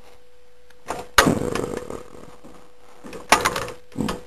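The four-speed gear lever of a 1950 Ferguson TEA20 tractor being worked through its gate with the tractor standing still, giving several clunks and scrapes as the gears are forced into mesh, one longer scrape about a second in and two short clunks near the end. Beneath them, the tractor's engine idles as a faint steady hum.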